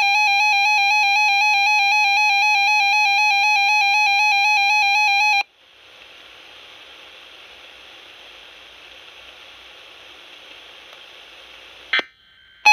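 RadioShack 12-521 weather alert radio sounding its loud, high alarm tone for a freeze warning alert. The tone cuts off suddenly about five seconds in and gives way to faint receiver hiss. A click comes near the end, and the tone starts again.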